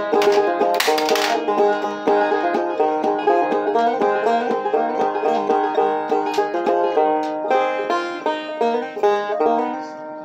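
Morgan Monroe open-back five-string banjo played solo: a quick, continuous run of plucked notes. Near the end the notes thin out and ring down.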